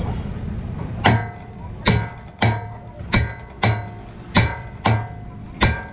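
A hammer striking a metal part about eight times in an uneven rhythm, each blow ringing briefly at the same pitch.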